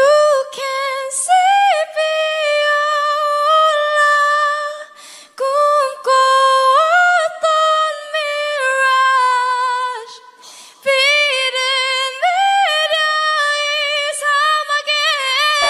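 A woman singing a cappella in a high register, holding long notes with vibrato. The singing comes in three phrases, with short breaks about five and ten seconds in.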